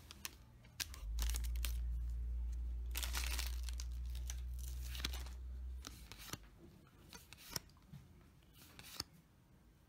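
A foil Yu-Gi-Oh booster pack wrapper is torn open and crinkled, and trading cards rustle and click as they are handled. Under it a steady low hum runs from about a second in and stops a little before the middle.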